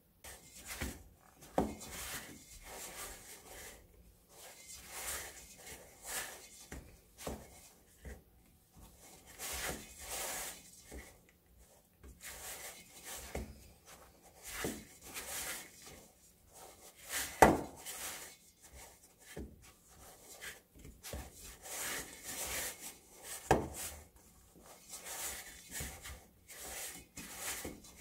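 Hand kneading shaggy flour-and-water bread dough in a stainless steel bowl: irregular rubbing and scraping strokes of dough and fingers against the metal, several a second, with a few sharper knocks on the bowl, the loudest a little past the middle.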